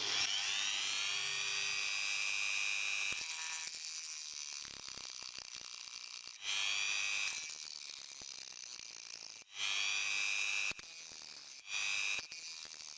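Small handheld rotary tool with a cutting disc running against a phone circuit board, cutting out the SIM card reader. Its high whine rises as the tool spins up, then runs in stretches with brief stops, about two-thirds of the way through and again near the end.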